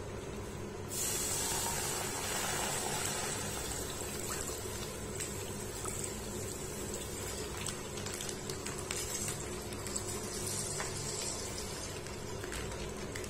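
Packet milk being poured into a hot kadai, a steady pouring, filling sound that starts about a second in.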